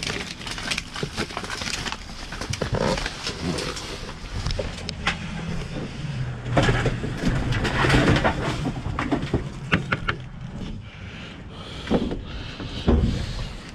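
Rummaging through a dumpster: trash bags and loose junk rustling, with many short, irregular knocks and clatters as items are shifted and pulled out.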